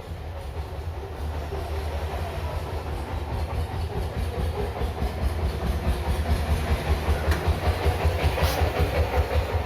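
Hot air rework station blowing steadily over the board to desolder and resolder a small SMD resistor, with a low hum beneath; it grows slowly louder and takes on a quick pulsing near the end.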